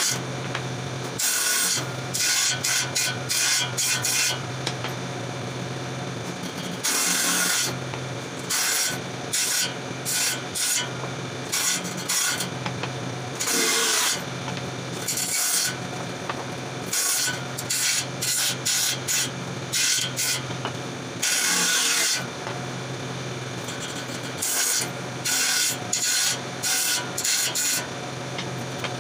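A bench-mounted power saw with a thin vertical blade runs with a steady low hum. Over a dozen short, loud bursts mark the blade cutting through small wooden blocks, each cut lasting under a second to about two seconds.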